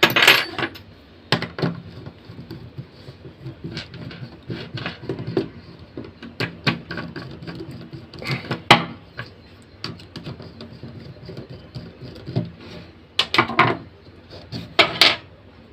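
Irregular clicks and taps of a hair trimmer's small plastic parts being handled and worked, with a louder cluster of clicks near the end.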